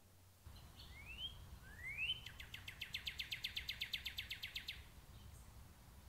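A songbird singing: two quick rising whistles, then a fast, even trill of about ten notes a second for some two and a half seconds, over a low steady rumble.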